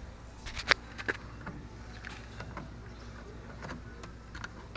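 Scattered light clicks and taps of a flat screwdriver working at plastic door trim, prying a part loose. The clicks are quickest and loudest about a second in, then come a few at a time.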